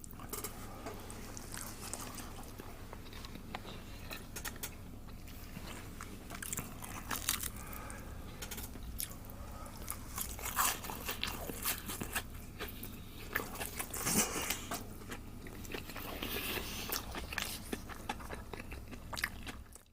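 Close-up chewing and biting into a freshly fried menchi katsu, its crispy panko crust crunching in short, irregular bursts.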